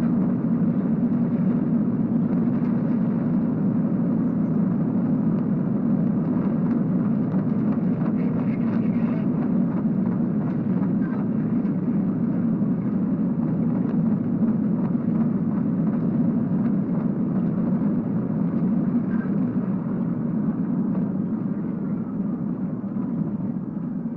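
Steady rumble of road and wind noise from a police cruiser driving at around 110–120 mph, heard inside the car. It eases off a little near the end as the car brakes and slows.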